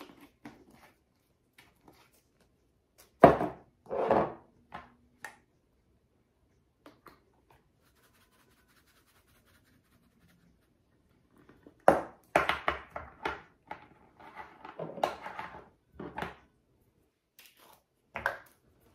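Spices being shaken from jars and a small shaker box onto salad in a glass bowl, with lid clicks. There are two sharp shakes a few seconds in, a run of quick shakes about twelve seconds in, and one more near the end.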